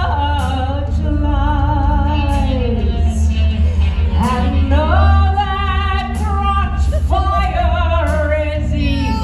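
Puppeteers singing in puppet character voices over a steady, bass-heavy musical accompaniment, with long wavering held notes, amplified through a theatre's sound system.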